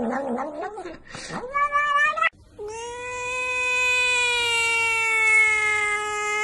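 A cat mewing in short, wavering cries. After a sudden cut about two seconds in, a black-and-white cat gives one long, steady yowl.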